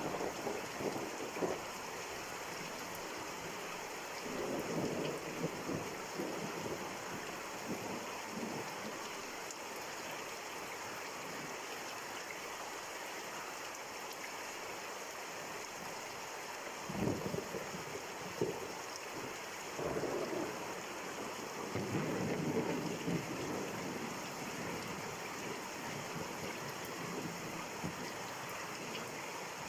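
Steady rain falling, an even hiss, with several louder, more uneven spells of heavier pattering now and then.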